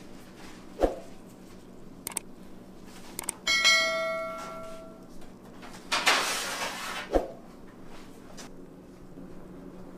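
Kitchen work sounds over a low steady hum: a couple of soft knocks, a bell-like ringing tone that starts about three and a half seconds in and fades over a second and a half, and a short rustling hiss about six seconds in.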